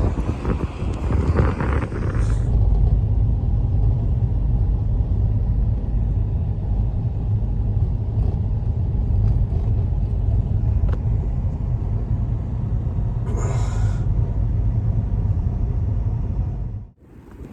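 Strong wind buffeting the microphone, a steady low rumble, with a brief rush of hiss about thirteen seconds in. It cuts off abruptly near the end.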